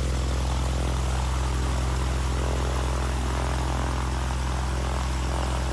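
Propeller engine of a single-engine high-wing light aircraft running steadily as the plane taxis.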